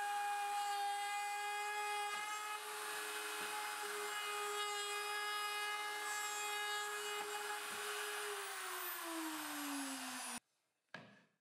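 Spindle motor of a homemade gantry router running with a steady high whine while its bit mills a groove in a melamine-faced MDF table saw insert, with a hiss of cutting. About eight seconds in, the whine drops in pitch as the spindle slows. It cuts off abruptly, followed by a short faint knock.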